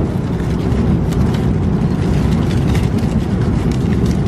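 Steady cabin noise of an Airbus A330-300 airliner in flight: an even, loud roar of engines and rushing air, heaviest in the low end, with a few faint clicks over it.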